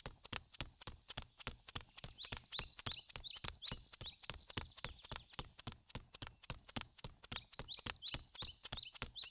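Footsteps sound effect: quick, even steps, about five a second. Two spells of short, high bird chirps come over them, one a couple of seconds in and one near the end.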